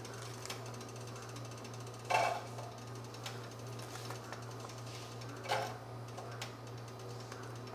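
Chopped onion sizzling and crackling in hot cooking oil in a pan, with fine irregular ticks. Two brief louder sounds come about two seconds and five and a half seconds in, as the onion is tipped in and stirred.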